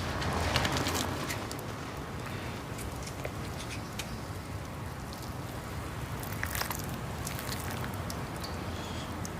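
Steady rain with scattered light clicks and crackles.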